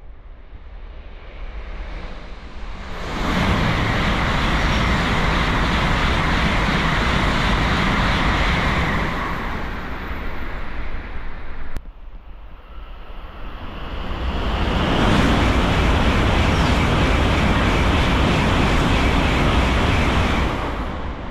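Tokaido Shinkansen N700-series bullet train passing through the station at full speed without stopping: a rising rush of wind and rail noise that holds loud for several seconds, then dies away. After an abrupt break, a second pass builds and holds in the same way.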